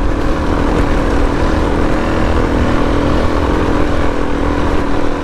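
Suzuki DR-Z400S single-cylinder four-stroke engine running steadily while the motorcycle rides along the trail, with an uneven low rumble beneath.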